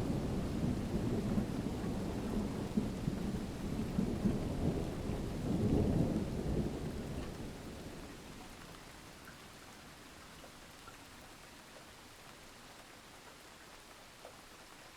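Rolling thunder rumbling over steady rain, swelling about six seconds in and then dying away, leaving a faint hiss of rain.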